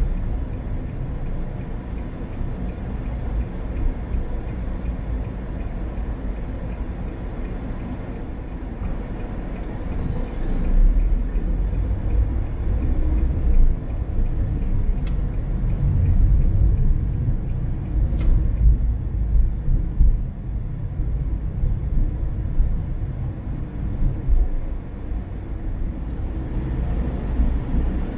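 Car driving on the road: a steady low rumble of tyres and engine that swells a little now and then.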